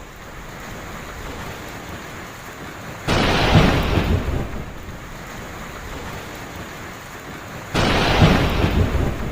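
Heavy rain falling steadily, with two sudden thunderclaps about three seconds in and again near the end. Each clap starts sharply and dies away over a second or two.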